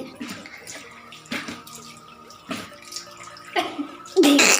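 People blowing their noses hard over a wash basin: short snorting blows about a second apart, then one long, loud blow near the end, with water running into the basin.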